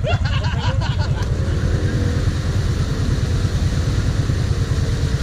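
Quad (ATV) engine idling steadily, a low even rumble. A person's voice calls out briefly in the first second.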